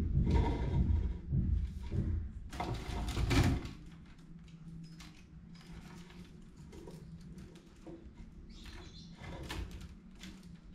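A woven rattan backpack basket being handled: its rattan strands and frame creak, rub and click as it is flexed and turned. The handling is louder with heavier bumps in the first few seconds, then drops to scattered soft clicks and scrapes.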